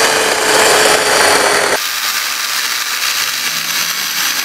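KM Grand LR-C120 cordless electric chainsaw with a 10-inch bar running at full speed with a steady, slightly falling motor whine, then cutting into a log of dense wood. About two seconds in, the sound changes abruptly to a noisier sawing sound as the chain works through the wood.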